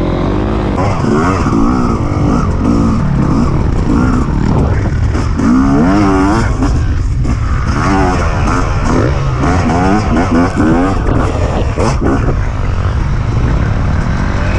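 Dirt bike engine revving up and down again and again as it is ridden hard through deep sand, over a steady low rumble.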